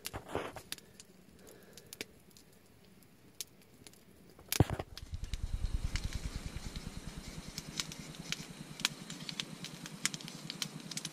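Wood campfire crackling with scattered sharp snaps, faint at first. About four and a half seconds in comes a sudden loud thump, and after it the crackling is louder and denser over a low rumble.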